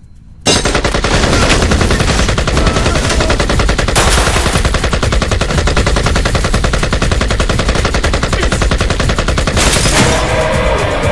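Sustained automatic machine-gun fire, a rapid unbroken stream of shots that starts abruptly about half a second in.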